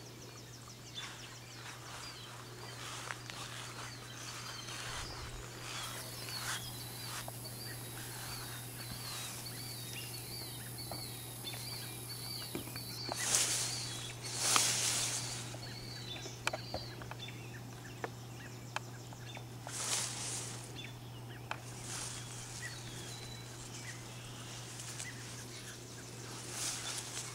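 Long lily leaves rustling as they brush against the camera, loudest in a couple of swells about halfway through. Through the first half a bird chirps repeatedly, about twice a second.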